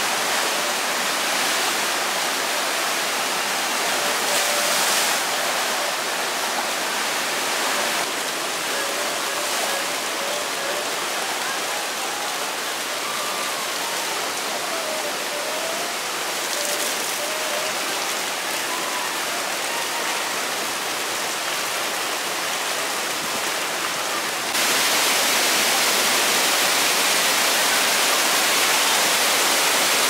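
Man-made whitewater rushing steadily down the concrete channels of a river rapids ride. It gets louder about three-quarters of the way through.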